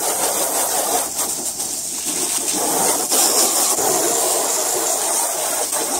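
Garden hose pistol-grip spray nozzle shooting a jet of water onto a fiberglass boat: a steady, loud hiss and splatter.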